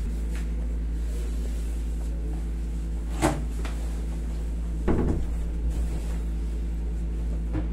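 A steady low electrical hum in a small room, with a sharp click about three seconds in and a short cluster of soft knocks and bumps near five seconds.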